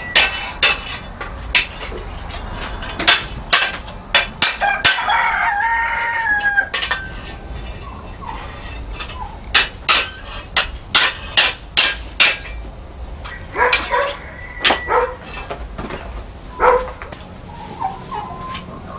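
Hand hammer striking steel on an anvil in several runs of quick blows, shaping a small trowel blade. About five seconds in, a rooster crows once, a drawn-out call lasting about two seconds.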